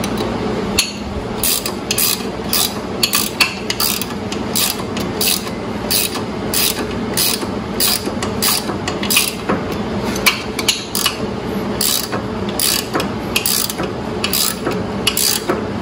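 Ratcheting wrench clicking in short strokes, about two clicks a second, as it snugs a nylock jam nut on a new hub bushing.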